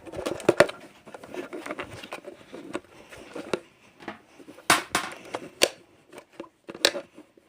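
Plastic clicks, knocks and rustling as a robot vacuum's dust bin is handled and opened to see whether it has filled up. Several sharp clicks stand out about five to seven seconds in.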